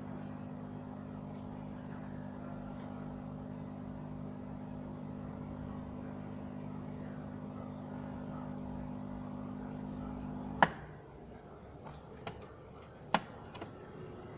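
Automatic espresso machine's pump humming steadily as espresso runs into a glass of frothed milk for a latte macchiato. It stops with a sharp click about eleven seconds in, followed by a few lighter clicks.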